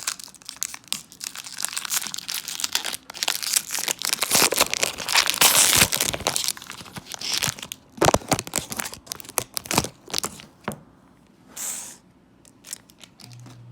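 A baseball card pack's foil wrapper being torn open and crinkled in the hands, a dense crackling that is loudest about halfway through and dies down after about ten seconds to a few quieter rustles.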